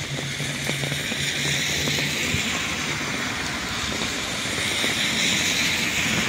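Heavy rain pouring onto a wet street, a steady hiss, with cars driving through on the wet asphalt. The tyre swish grows louder in the second half as cars approach, and a low engine hum fades out about halfway.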